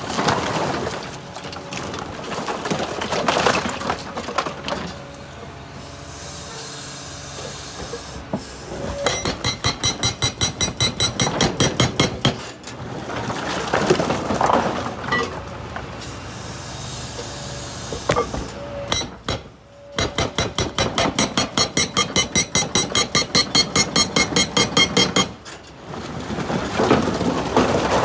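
Excavator-mounted hydraulic rock breaker hammering into hard rock pre-split with an expansive demolition agent. Two long runs of rapid, even blows at about four to five a second, with irregular knocking and scraping of the chisel and loosened rock between them.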